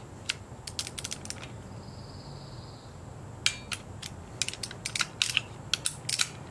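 Click-type torque wrench handled in the hands, giving irregular sharp metallic clicks: a short run about a second in, then a longer run from about three and a half seconds in.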